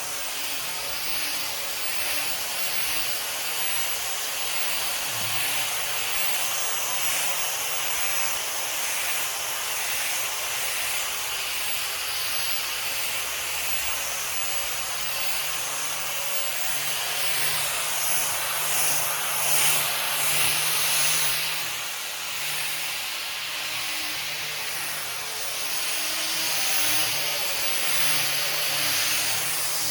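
Orbital sander running on a wooden table top: a steady hiss of sandpaper on wood over a low motor hum, getting louder for a few seconds about two-thirds of the way through.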